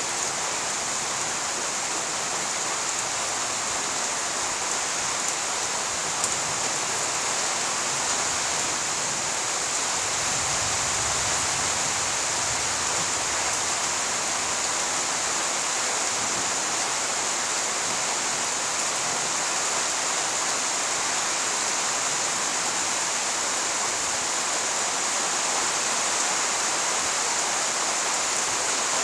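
Steady rain falling on leaves and flooded ground, an even hiss that holds at the same level throughout.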